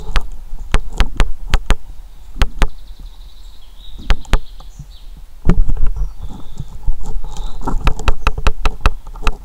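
Handling noise from a camera being adjusted on its tripod: a run of sharp clicks and knocks, with a heavier bump about five and a half seconds in and a quick cluster of clicks near the end.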